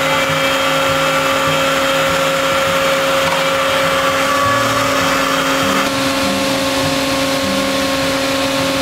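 CNC router running a slow surfacing pass over a wooden slab: a steady machine whine with a constant pitch over a noisy cutting hiss and an uneven low rumble.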